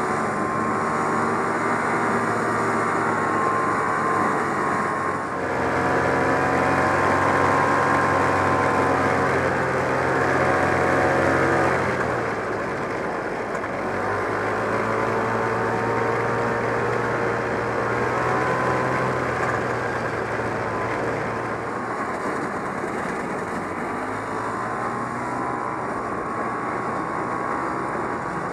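1969 Polaris Mustang snowmobile's 372 cc JLO two-stroke engine running under way, its pitch rising and falling with the throttle. It is louder from about five to twelve seconds in.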